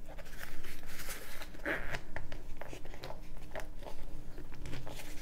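A fabric bicycle saddlebag, packed tight with a CO2 inflator, pump and tools, being squeezed and worked closed by hand: irregular rustling and scraping of the fabric and its contents.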